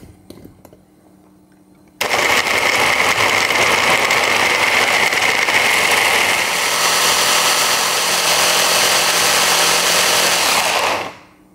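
An electric blender's motor and blade running, grinding chunks of raw potato and onion into a purée. It starts suddenly about two seconds in and stops sharply near the end, and its sound shifts about halfway through as the pieces break down into a smooth mash.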